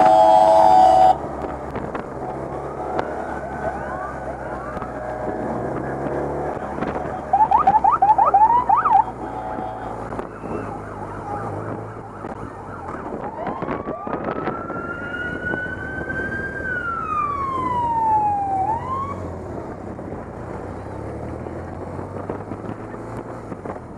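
Police motorcycle sirens over the steady running of the motorcycles' engines. A loud steady horn tone cuts off about a second in. A burst of rapid siren yelps follows about seven seconds in, then a slow siren wail that rises and falls back.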